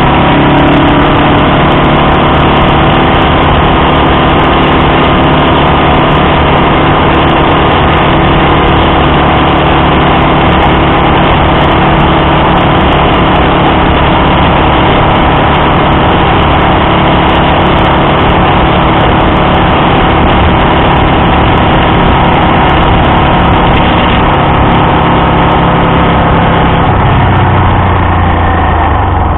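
Honda Dream CL250's air-cooled parallel-twin engine running steadily while riding at road speed. Near the end the engine note drops lower as the bike slows.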